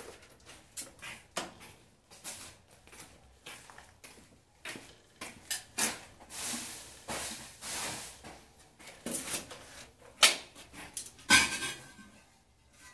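A trowel scraping stiff cement mortar out of a plastic bucket and spreading it over a tiled floor: a run of short irregular scrapes and taps, with a louder clatter near the end.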